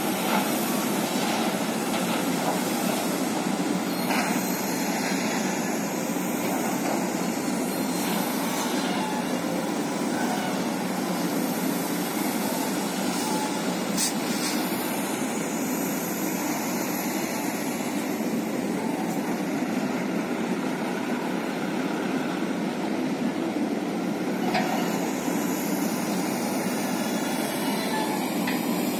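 Diesel engines of Mitsubishi Fuso dump trucks and a hydraulic excavator running steadily together, a continuous heavy machinery sound with no break.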